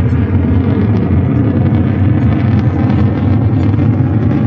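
A steady, loud engine drone with a low pitched hum, holding level without rising or falling.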